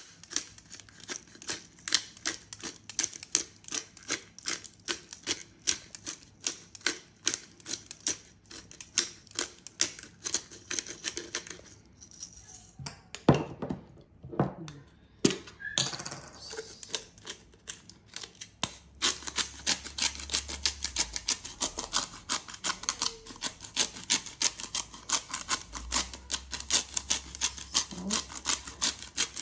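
Hand-twisted spice grinder cracking peppercorns over a bowl of sliced raw beef: fast runs of crackling clicks. About halfway there is a pause with a few single knocks, then steady grinding again.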